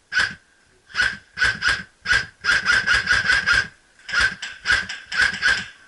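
Echo1 Troy MRF-S airsoft electric rifle firing about sixteen shots. The first few are spaced out, then a quick string of about eight comes around the middle, then a few more single shots near the end.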